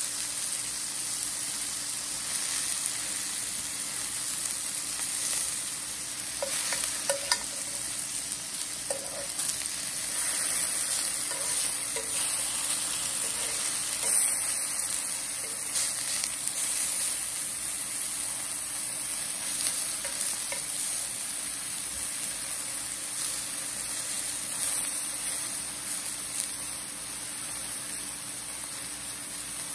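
Lemon slices sizzling in hot olive oil in a cast-iron skillet as they char. A few clicks of metal tongs against the pan are heard as the slices are turned.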